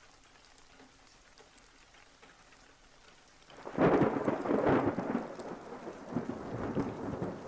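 Near silence, then about three and a half seconds in, a clap of thunder breaks and rolls over steady rain, the rumble slowly fading while the rain goes on.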